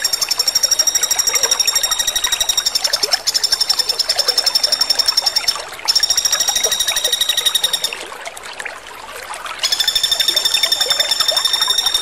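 Common flameback woodpecker giving long, rapid, high-pitched rattling trills in runs of a few seconds with brief breaks, and a longer pause about eight seconds in before the trilling resumes.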